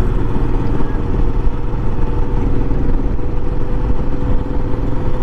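Royal Enfield Himalayan's single-cylinder engine running steadily at cruising speed on the move, with a constant low rumble of riding noise and no change in pitch.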